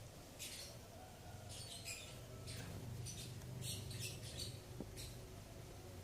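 Repeated short, high-pitched squeaks or chirps from a small animal, several a second, over a faint steady low hum.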